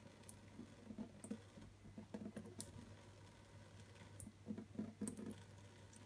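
Faint, irregular pattering and soft clicks from a thin stream of tap water running into a stainless steel sink while a cat pokes at it, over a steady low hum.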